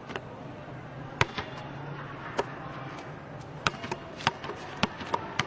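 A basketball bouncing on a concrete court: a run of sharp, irregularly spaced smacks, about nine in all.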